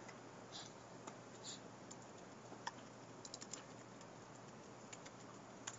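Faint, scattered keystrokes on a computer keyboard, typing a web address into a browser, with a short quick run of keys about three and a half seconds in.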